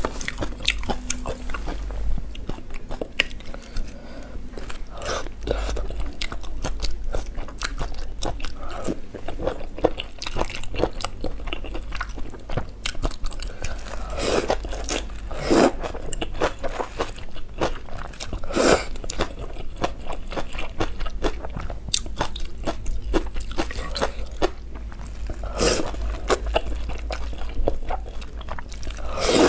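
Close-miked eating sounds of a person chewing and slurping noodles: a steady run of wet mouth clicks and chewing, broken by several louder slurps as bundles of noodles are sucked in.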